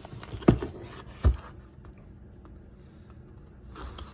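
Two dull knocks, about a second apart, then a faint rub and rustle: a cardboard tool box being handled and turned on a countertop.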